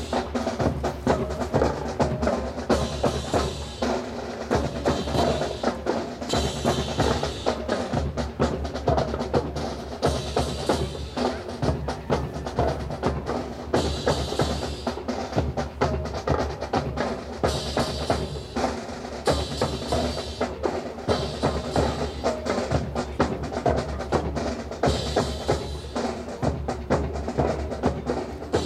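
Marching drum corps playing a continuous cadence on snare and bass drums, a rapid, steady beat with rolls.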